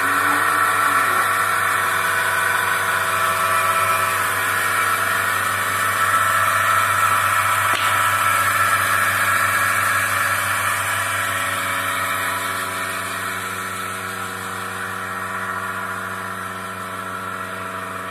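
Milking machine's 1.5 HP vacuum pump, belt-driven by an electric motor, running steadily: a constant mechanical hum with a higher whine over it, growing slightly fainter in the second half.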